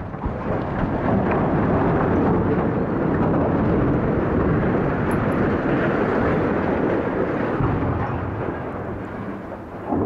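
Explosively felled 320-foot structural steel blast furnace and its steel exoskeleton toppling and crashing to the ground: a long, loud rumble that builds about a second in, holds for several seconds and then fades, with a sharp thump near the end.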